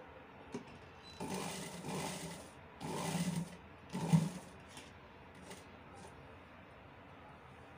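Sewing machine stitching in three short runs, the last the shortest and loudest, with a few light clicks between them.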